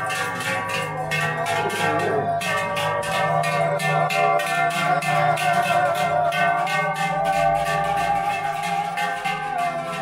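Several large brass cowbells on walking cows clanging together in a steady, fast rhythm, their ringing tones overlapping.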